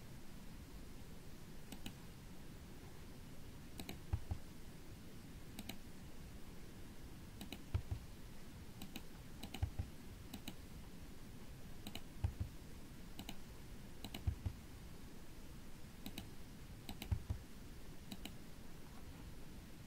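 Computer keyboard keys and mouse buttons clicking at irregular intervals, roughly one every second or so, many in quick pairs, with a few soft low thuds.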